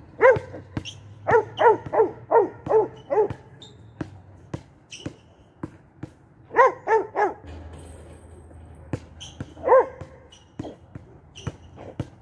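A dog barking in short runs: a single bark, then six in quick succession, three more about halfway through, and one more near the end. Sharp thuds of a basketball bouncing on the asphalt court come in between.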